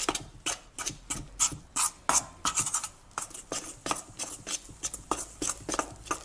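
Spoon stirring and scraping in a stainless steel bowl, working flour into a soft kefir dough for dumplings, in quick irregular strokes about three a second.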